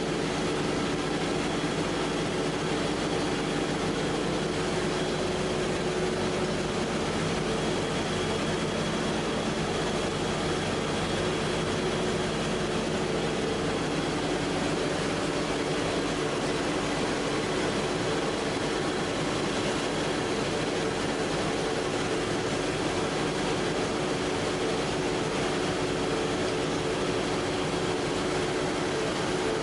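A PP/PET strapping extrusion line running: a steady machinery hum with a few steady tones, unchanging throughout.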